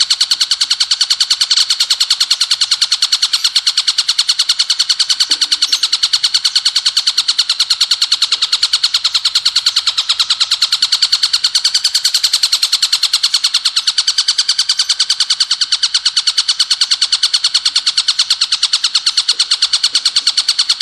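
Ciblek gunung, a mountain prinia, singing its rapid-fire 'bren' song: a fast, unbroken run of evenly repeated high notes.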